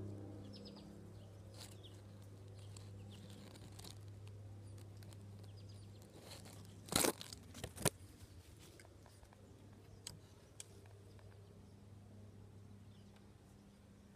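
Steady low hum with a few faint, short high chirps. About halfway through come two sharp crackling noises, under a second apart.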